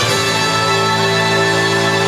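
Loud music of long held chords. A new chord comes in at the start, and a higher held note joins under a second in.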